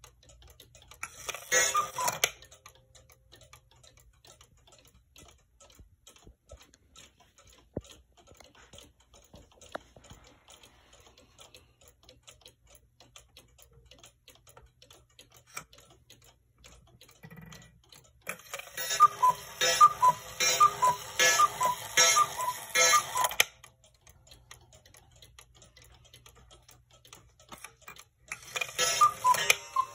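Hubert Herr Black Forest cuckoo clock ticking, with its bellows cuckoo call sounding in three bursts as the hands are turned: a short call early, a long run of paired two-note cuckoos past the middle, and a short call near the end.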